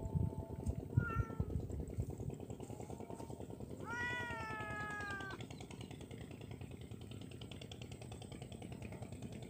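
An animal calling with cat-like meows: a short call about a second in, then a longer call about four seconds in that falls slightly in pitch, over a steady low rumble.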